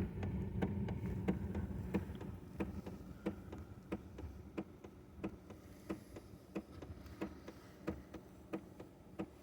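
Chinese diesel heater running just after lighting: its pulsed fuel dosing pump ticks steadily, about three clicks every two seconds, over a low hum from the fan and burner that eases off over the first few seconds.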